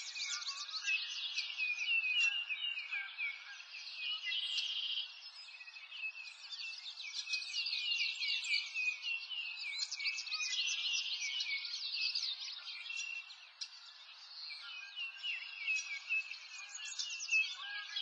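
A chorus of songbirds chirping and trilling steadily, all high-pitched with no low sounds.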